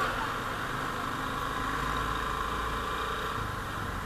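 Motorcycle engine running steadily while riding, heard from the rider's seat, with an even rush of noise over a low rumble.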